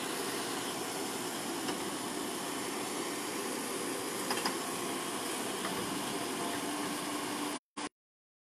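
Diesel engine of a heavy truck loaded with a JCB excavator, running steadily. The sound cuts out abruptly near the end.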